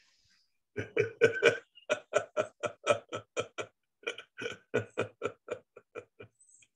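A man laughing heartily: a long run of quick 'ha' pulses, about four a second, tapering off near the end.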